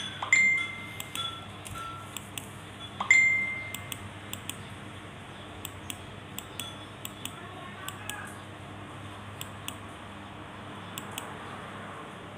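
Two sharp ringing clinks of hard objects, like dishware knocking together, about three seconds apart, with faint scattered clicks between.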